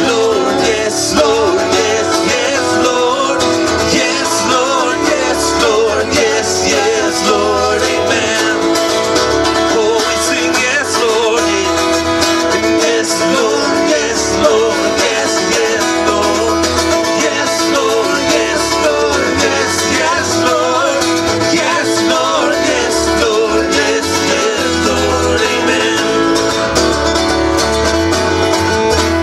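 Live country gospel band playing, strummed acoustic guitars over a steady bass line.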